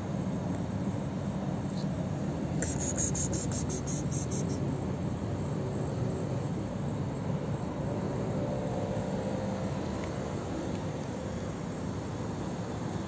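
Steady low outdoor rumble, like distant traffic. About two and a half seconds in, a high-pitched insect chirps in quick pulses for about two seconds.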